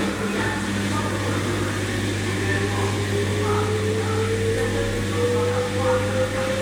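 LG washing machine's motor speeding up, a steady hum under a slowly rising whine: the drum ramping up toward spin.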